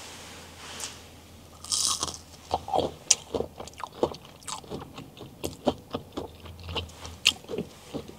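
A bite into a crispy-coated chicken McNugget about two seconds in, then chewing close to a clip-on microphone, with the breading crunching about three times a second.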